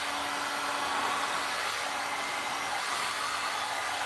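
Electric heat gun with a nozzle attachment running steadily, a constant rush of air over a faint steady hum, its air stream pushing wet pour resin around the piece.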